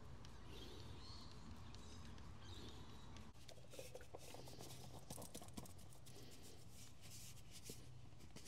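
Faint clicks and scrapes of hands working on fittings of a stopped diesel engine, over a steady low hum.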